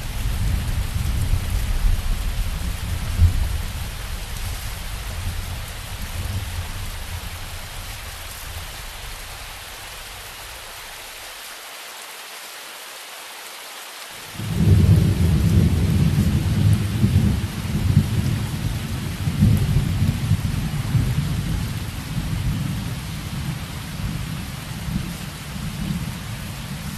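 Steady rain with rolling thunder. A low rumble dies away, then a new peal of thunder breaks in suddenly about halfway through and slowly fades.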